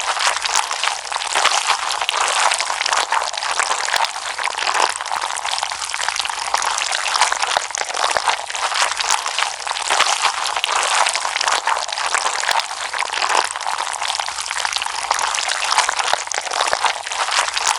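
Slime being played with: a dense, unbroken stream of small wet pops and crackles.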